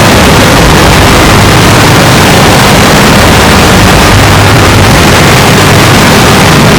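Loud, constant, heavily distorted digital noise with a low drone underneath: a sneeze sample processed through stacked effects, vocoder included, until nothing of the sneeze is recognisable.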